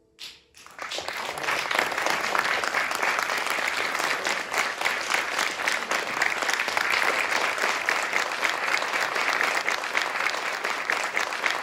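Audience applauding. The clapping breaks out about half a second in and carries on steadily as a dense patter.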